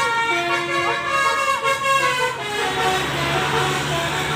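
A bus's basuri telolet horn, a set of musical air horns, playing a tune of held notes that step up and down in pitch, with shorter notes in the second half. Voices can be heard along with it.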